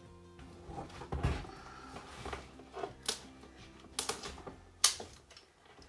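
Scattered clicks and knocks from working a fabric sample book apart with garden cutters, the sharpest snap about five seconds in, over soft background music.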